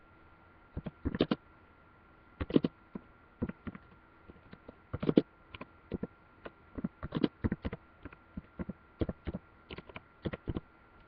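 Typing on a laptop keyboard: irregular key taps and clicks, sometimes several in quick succession, with short pauses between. A faint steady high whine runs underneath.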